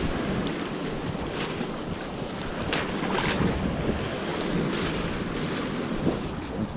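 Wind buffeting the microphone over sea waves washing, with a few brief splashes as a gill net is pulled through the water.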